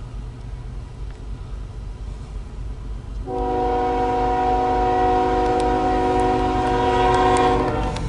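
Freight locomotive's multi-chime air horn sounding one long blast of about four and a half seconds, starting about three seconds in, over a steady low rumble.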